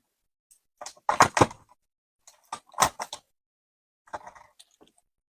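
Hands handling a phone box and its packaging during unboxing: three short clusters of clicks, taps and knocks with pauses between them.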